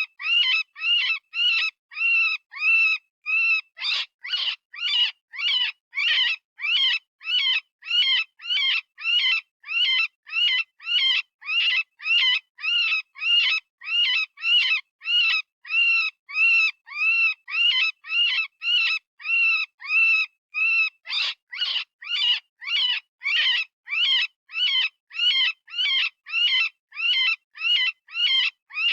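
Software-generated rabbit distress scream, of the kind used as a predator call. Short, high, arched squealing cries repeat evenly, about three every two seconds.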